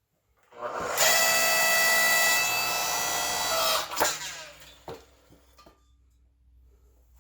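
Electric 4-ton log splitter used as a forge press, running: its motor and hydraulic pump whine steadily for about three seconds as the ram flattens the hooks. It cuts off with a sharp click, followed by a few light clinks.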